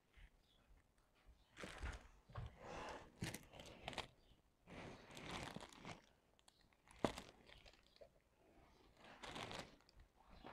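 Faint, irregular rustling and crinkling of a diamond-painting canvas and its clear plastic cover film as a drill pen picks up and presses resin drills, with one sharp tick about seven seconds in.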